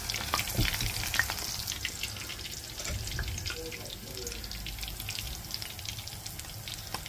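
Gram-flour-battered spinach leaves frying in hot oil: a steady sizzle dotted with small crackles and pops.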